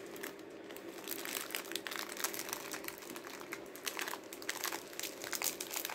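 Plastic wrapper of a Parle-G biscuit pack crinkling in a steady run of small crackles as it is handled.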